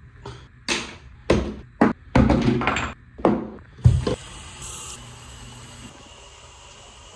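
A run of short knocks and rustles of things being handled at a bathroom sink, then the tap running into the basin for a couple of seconds, about four seconds in.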